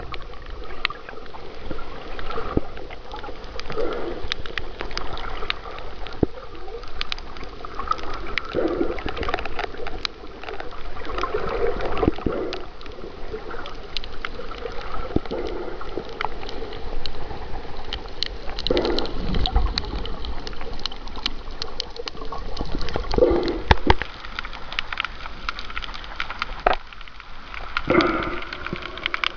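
Water sloshing and gurgling around a waterproof camera held underwater over a reef, heard muffled through the housing, with many scattered sharp clicks and crackles and a fuller surge every few seconds.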